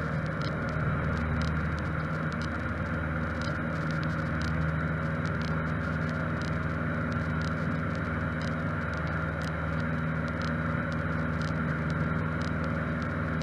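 Cessna 152's four-cylinder Lycoming O-235 engine and propeller droning steadily from inside the cabin during takeoff and the first climb, with no change in pitch.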